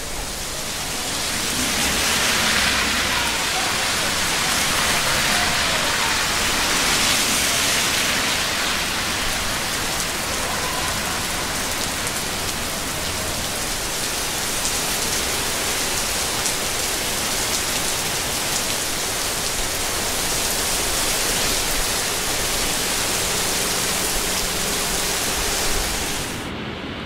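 Heavy rain pouring onto pavement, a steady hiss that swells a little over the first couple of seconds. Near the end the higher part of the hiss drops away suddenly.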